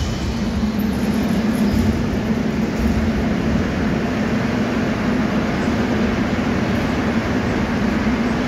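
Moscow Metro 81-717.5M/714.5M 'Nomernoy' train standing at the platform with its doors opening: a steady low hum from the stopped train under the station's noise.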